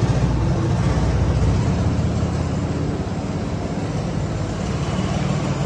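Heavy diesel engine idling, a low rumble with a rapid even pulse, loudest for about the first second and a half and then a little quieter but steady.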